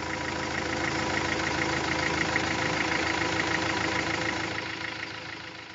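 An engine idling steadily, fading away near the end.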